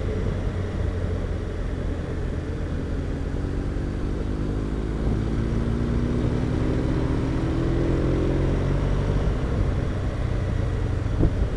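BMW R1200RT motorcycle's flat-twin engine under way over steady wind and road rumble; its note climbs steadily for several seconds as the bike accelerates, then eases off near the end.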